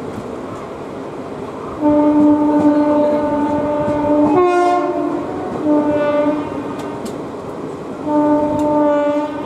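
Locomotive horn sounding three blasts over the steady running noise of a moving train, heard from aboard. The first blast, about two seconds in, lasts about two and a half seconds and shifts briefly to a higher tone. A short blast follows, and a third comes about eight seconds in.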